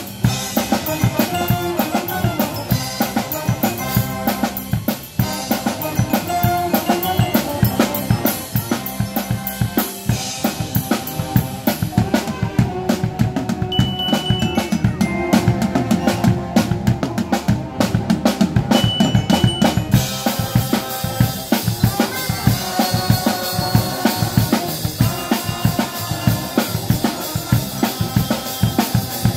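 Pep band playing: a drum kit keeping a steady beat under saxophones and brass. About twenty seconds in, the cymbals come in fuller and brighter.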